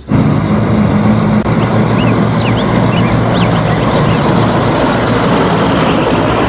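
Mack truck tractor unit's diesel engine running as the truck drives along the road, a steady loud rumble that cuts in suddenly.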